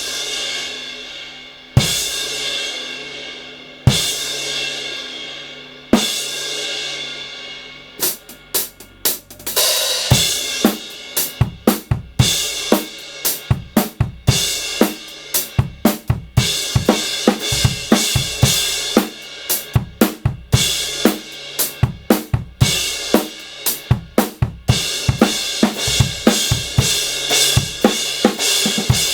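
Kingdo Artist Dark 18" crash cymbal struck on its own about every two seconds, each crash left to ring and fade. From about eight seconds in it is played within a full drum-kit beat, with snare, bass drum and hi-hat hits under repeated crash accents.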